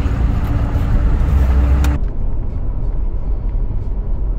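Steady cab-interior drone of a 1993 Dodge W250's Cummins turbo-diesel straight-six and road noise while cruising. About two seconds in, the sound cuts abruptly to a quieter, duller low rumble of a vehicle driving.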